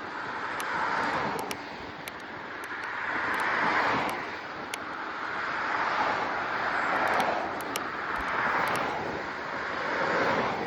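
Rushing wind-like noise during a bicycle ride, swelling and fading about every two to three seconds, with faint scattered high ticks.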